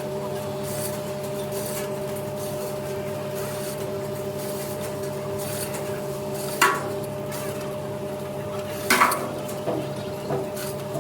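Steady machine hum in a steel fabrication shop, with two sharp metal clanks of steel being handled or struck, about two and a half seconds apart in the second half.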